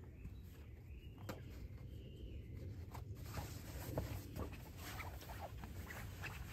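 Footsteps on dirt and dry leaf litter, then close rustling and crunching from about three seconds in as the tent canvas is handled. A bird calls faintly twice early on.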